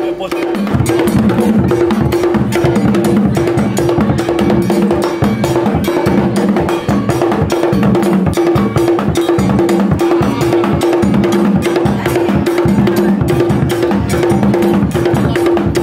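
Drum-led music with a steady, fast beat and a low note repeating at even spacing, getting louder about a second in.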